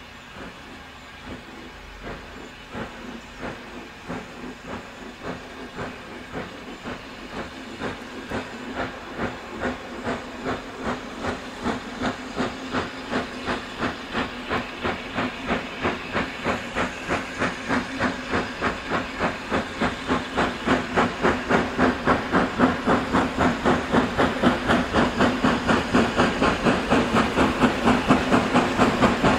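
J94 'Austerity' 0-6-0 saddle tank steam locomotive pulling away with its train, its exhaust chuffing in an even beat that quickens and grows steadily louder as it approaches.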